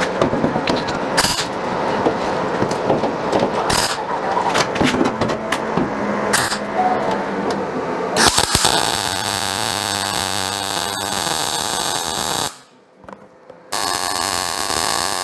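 MIG welder tack and stitch welding a sheet-steel patch panel: a crackling, frying buzz. It comes in short, uneven bursts for the first half, runs steadily from about eight seconds in, stops for about a second near the end, then starts again.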